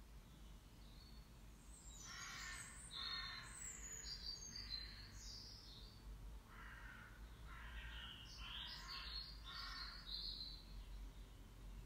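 A bird calling over and over, faintly: two runs of short, repeated calls of about four or five each, with a brief pause between them, over a steady low hum.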